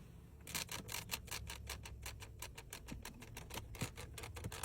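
A fast, slightly irregular run of sharp clicks, about seven a second, starting about half a second in: a creaking rattle from the Porsche's body or interior trim, the squeak the car is being checked for.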